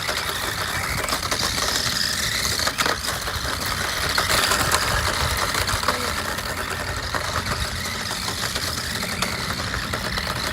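Small electric RC car's motor and gears whining, the pitch rising and falling with the throttle, while its wheels crunch and rattle over gravel with a dense run of small clicks.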